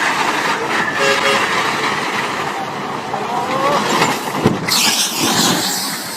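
Dense vehicle noise with a few brief horn-like tones in the first couple of seconds, then a louder rush of hissing from about five seconds in.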